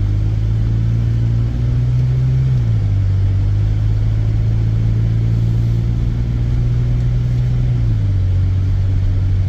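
Car engine running on the road, with tyre and road noise: a steady low drone whose pitch steps up once and then down twice.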